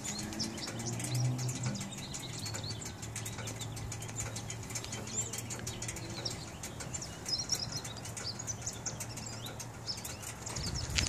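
Small birds chirping in the background, many short high chirps scattered throughout, over a faint steady low hum and light rustling from the camera being handled.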